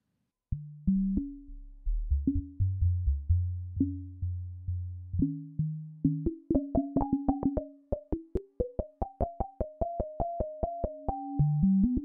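Meng Qi Wing Pinger synthesizer, whose resonant filters are pinged instead of oscillators, played in tune from a keyboard: sharp, plucked, ringing notes over a held tone, with low notes first. From about six seconds in, a faster train of plucks, about four a second, carries a higher melody stepping up and down.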